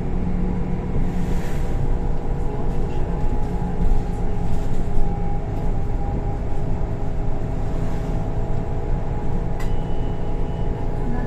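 Golden Dragon XML6125 city bus under way, heard from inside the cabin: a steady drone of engine and drivetrain through its Voith automatic gearbox, with road noise. A click and a short high tone sound about ten seconds in.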